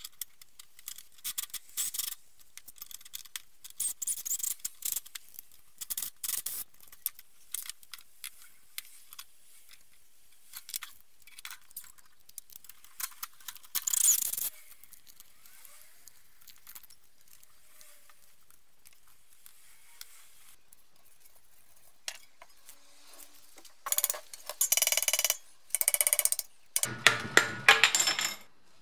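Metal tools and parts of a car's front strut clinking and clanking on a workbench, with short runs of a corded power drill winding coil spring compressors, the longest and loudest runs near the end.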